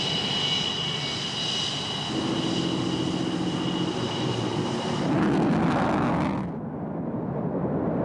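Panavia Tornado GR1's twin RB199 afterburning turbofans running: a steady high-pitched whine over the jet roar, then a louder roar of takeoff power that drops away suddenly about six and a half seconds in.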